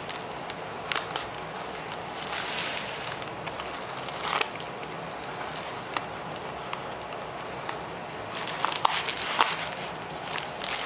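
A mailer envelope rustling and crinkling as it is handled and sliced open with a Spyderco Domino folding knife, with a few sharp clicks scattered through it and a cluster of them near the end.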